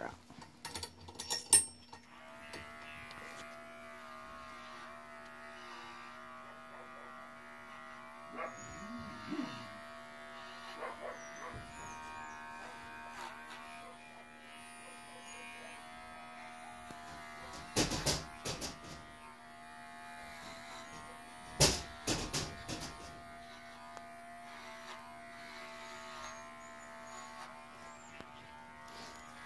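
Cordless dog-grooming clipper with a No. 10 blade running with a steady hum, switched on about two seconds in after a few clicks, while it trims a puppy's head. A few sharp knocks sound over it about 18 and 22 seconds in.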